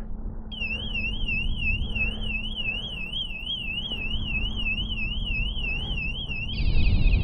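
Aftermarket motorcycle alarm siren sounding: a high electronic tone that warbles up and down about three times a second, switching near the end to a faster, louder trilling pattern.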